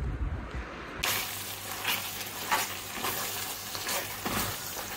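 A low rumble for the first second, then marinated mutton sizzling as it fries in oil and ghee in a frying pan, stirred with a wooden spatula that scrapes against the pan several times.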